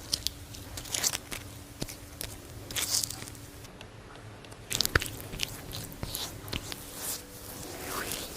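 Irregular crisp crunching and crackling from something brittle being cut or crushed, with sharper snaps about one, three and five seconds in, the loudest near five seconds.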